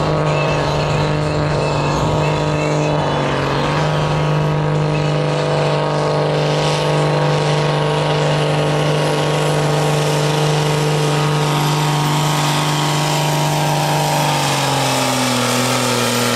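John Deere 6920's six-cylinder diesel engine running hard under heavy load, dragging a 6,000 kg pulling sled. The loud, steady engine note drops lower about two seconds before the end.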